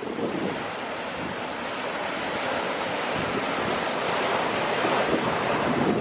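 Sea waves breaking and washing over rocks at the shoreline, a continuous rushing surf that swells louder toward the end.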